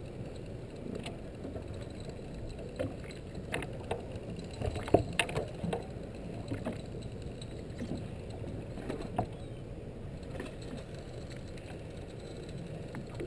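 Steady low rumble aboard a fishing boat at sea, with scattered clicks and knocks, the sharpest about five seconds in.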